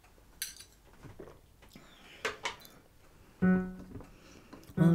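Small knocks and clicks from a drinking mug being used and set down, then about three and a half seconds in a single steady musical note sounds briefly and fades, before an unaccompanied folk song; a voice begins right at the end.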